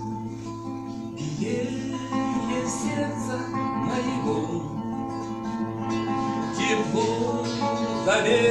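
Acoustic guitar playing a plucked and strummed accompaniment, with a voice singing along from about a second in.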